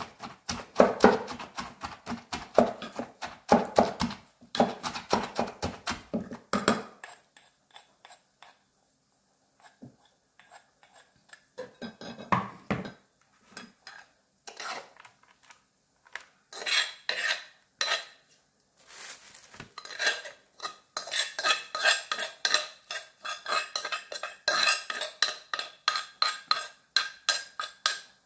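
Wooden pestle knocking rapidly in a clay mortar, mixing papaya salad, for the first several seconds. Later, a metal spoon scrapes and clinks against the clay mortar and a plate as the salad is scooped out.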